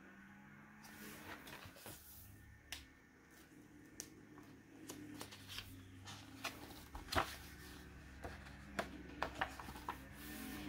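Quiet handling noise in a small room: scattered light clicks and soft rustles, one sharper click about seven seconds in, over a faint low hum.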